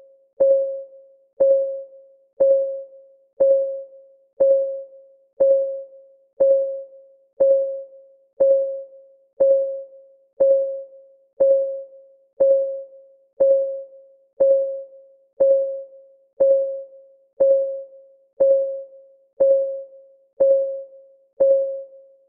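Countdown timer's clock-ticking sound effect: a short pitched tick once a second, each dying away quickly, evenly spaced throughout.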